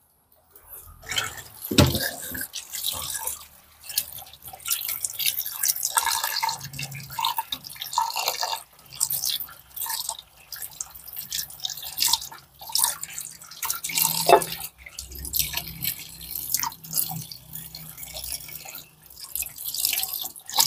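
Water running from a tap and splashing into a metal pot in a stainless steel sink while hands wash something under the stream, uneven and splashy, with a couple of knocks.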